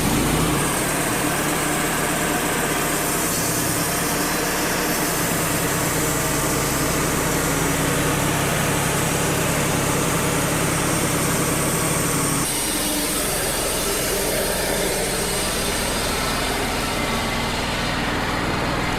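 Wood-Mizer LT35 portable band sawmill running, its band blade sawing through a knotty white pine log; the sound changes about two-thirds of the way through.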